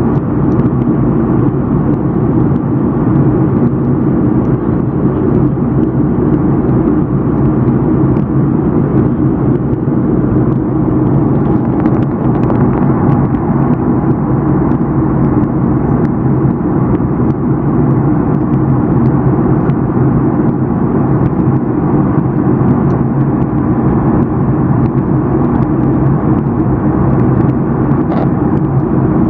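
Steady low cabin noise of a jet airliner in flight, from the engines and the air rushing past the fuselage. It stays even and unchanging throughout.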